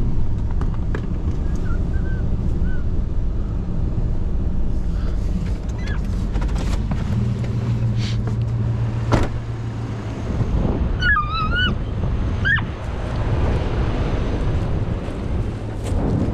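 Pickup truck engine running with a steady low hum, with wind noise on the microphone. There is a single sharp knock about nine seconds in. A short, wavering high-pitched cry comes about eleven seconds in.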